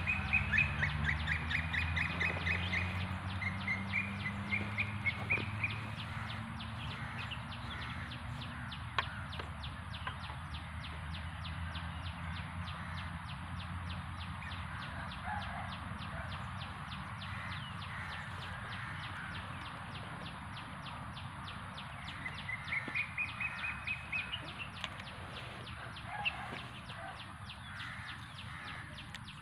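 Birds calling outdoors: quick chattering series of high calls in the first few seconds and again about 22 seconds in, over a fast, steady ticking.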